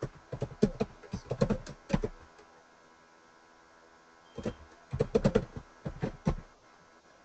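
Computer keyboard typing: a run of keystrokes over the first two seconds, a pause, then another quick flurry of keys about five to six seconds in.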